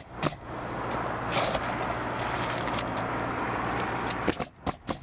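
Pneumatic coil roofing nailer shooting nails into asphalt shingles: a couple of sharp shots at the start and a quick run of four or five shots near the end. In between there is a steady low hum with noise.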